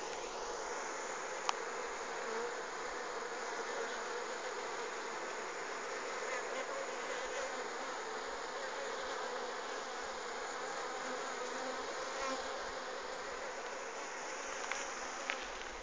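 A honeybee swarm buzzing steadily as it moves into its new hive through the entrance, with one small click about a second and a half in.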